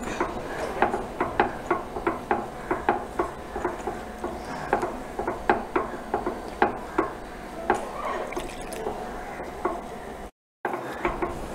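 A hand mixing rice flour with tamarind water in a bowl, kneading it toward an upma dough: a run of irregular soft squishes and pats, two or three a second.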